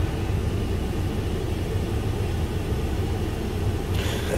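A steady low rumble, with a brief higher rustle about four seconds in.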